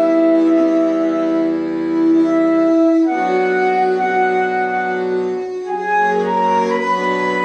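Instrumental music with no singing: slow, sustained reedy chords, in the manner of an accordion or organ, each held about three seconds before moving to the next.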